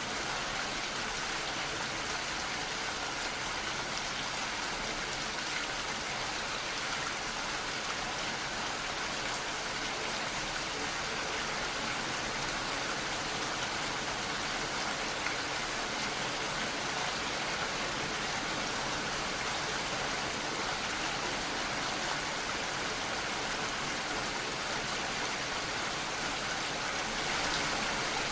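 Steady rain falling, an even hiss of many drops, swelling slightly near the end.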